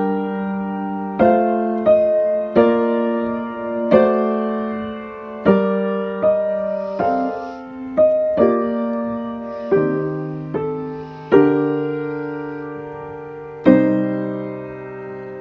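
Piano playing a harmonised melody in G minor, with notes and chords struck about once a second, each dying away. It is the example phrase for a minor-key imperfect cadence.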